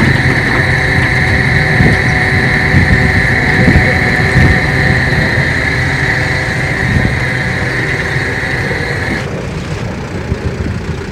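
A truck engine running steadily, with a steady high-pitched whine over it that cuts off suddenly about nine seconds in.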